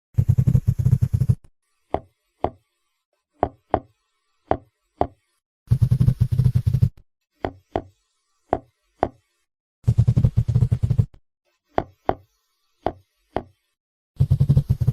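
Seahorse sounds: a low, rapidly pulsing buzz lasting just over a second, returning about every four seconds, with pairs of sharp clicks about half a second apart in between.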